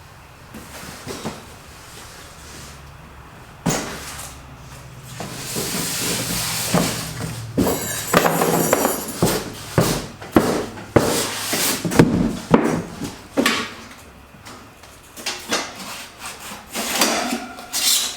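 Cardboard and styrofoam packing being handled and pulled apart: irregular scraping, rubbing and knocks, busier from about four seconds in.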